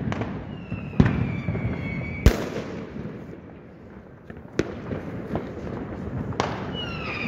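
New Year's Eve fireworks: four sharp firecracker bangs, about one, two and a quarter, four and a half and six and a half seconds in, the one at two and a quarter seconds loudest, over a continuous crackle of fireworks further off. Twice a whistling firework gives a high whistle that falls slightly in pitch, once in the first two seconds and again near the end.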